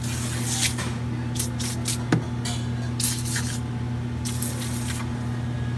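Foaming coil cleaner sprayed from a can onto a display case's evaporator coil in about four short hisses, with a brief click about two seconds in. A steady low hum runs underneath.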